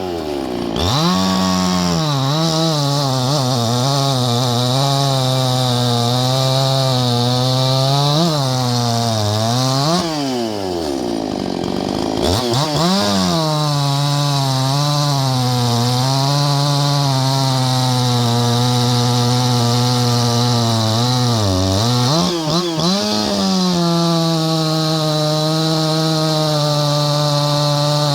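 Ported Husqvarna 350 two-stroke chainsaw running at high revs, its pitch held high and wavering. The revs fall away sharply about ten seconds in, drop low for a moment, then climb back up, with another brief dip later before the engine settles at a steady high speed.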